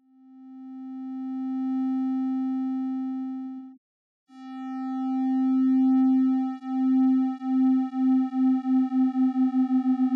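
Steady synthesized waveform tone, pitched a little above middle C with a slightly buzzy edge: the audio signal that drives the CRT XY scope. It swells in over about two seconds and cuts off just before four seconds in. It returns half a second later, and from about six and a half seconds in it wobbles in loudness, the beats coming steadily faster.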